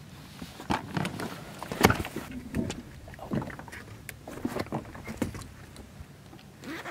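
Irregular knocks and thumps of handling and footsteps aboard a small fishing boat, the loudest a little under two seconds in, over a low wash of water and wind.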